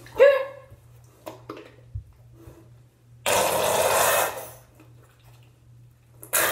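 A short squeak, then about a second of loud rushing, splashing water noise from bathing a puppy in a tub, with another short burst near the end.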